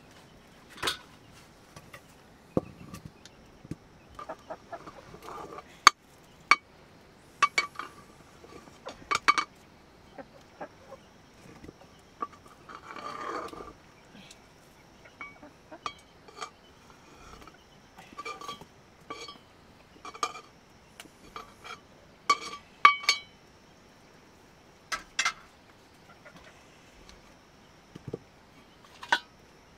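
A metal ladle clinking and scraping against a metal cooking pot as rice is stirred over a wood fire, with sharp ringing knocks at irregular intervals and a longer scraping stir about halfway through.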